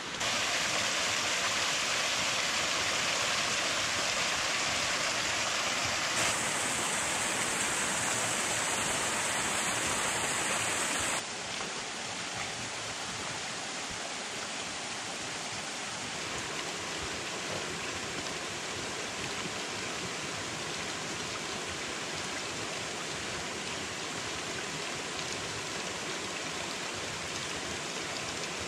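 Mountain stream rushing over rocks, a steady noise of running water that drops to a quieter level about eleven seconds in.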